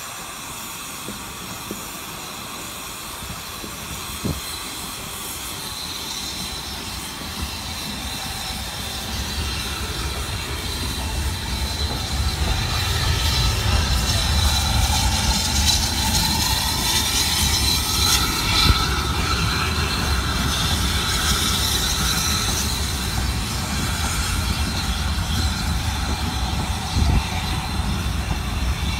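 Steam train: a steady hiss of steam over the low rumble of the train running, growing louder over the first half.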